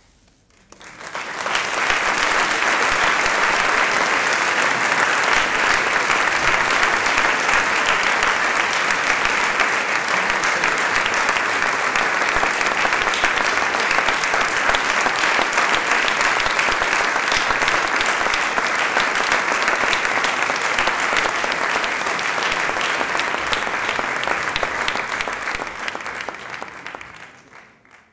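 Audience applauding steadily. It builds quickly about a second in and fades away near the end.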